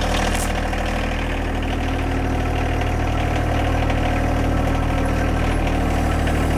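Engine idling steadily, a constant low running sound that holds without change.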